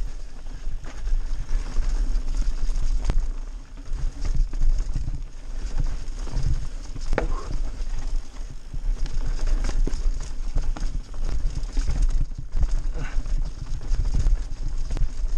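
Mountain bike riding fast down a loose dirt downhill trail: constant rattling and clattering of the bike over stones and roots, tyres crunching on dirt, under a heavy rumble of wind on the camera's microphone. A short squeak comes about seven seconds in.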